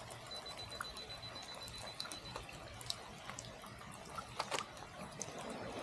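Faint, rapid high beeping from a Canon mirrorless camera's 2-second self-timer, lasting about two seconds, then scattered sharp clicks. Soft water drips and trickling run underneath.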